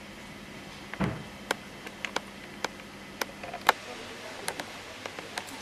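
About a dozen sharp clicks and taps at irregular intervals, with a dull thump about a second in, over a faint low hum that fades out partway through.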